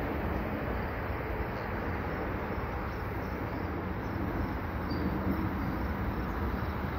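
Approaching EXO commuter train of Bombardier multilevel coaches, pushed by a GMD F59PHi diesel locomotive at the rear, heard as a steady low rumble while it is still some way down the line.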